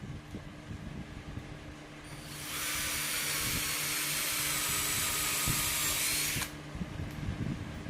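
Electric power tool running on wood for about four seconds: it builds up about two seconds in, runs steadily with a high-pitched hiss, then stops abruptly. Low knocks and handling sounds come before and after it.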